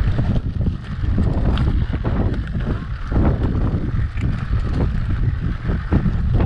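Rocky Mountain Powerplay electric mountain bike rolling over loose rock scree, with its tyres crunching and the bike rattling and knocking over the stones, and wind buffeting the camera microphone.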